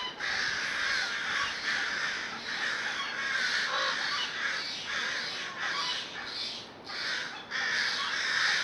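Crows, jays and ravens calling harshly over one another in a near-continuous mobbing chorus, with a few short breaks. These are alarm calls of birds gathered over a predator hidden on the ground.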